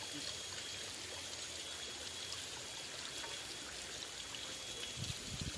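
Water of a small stream running steadily, an even, constant flow sound, with a few low bumps near the end.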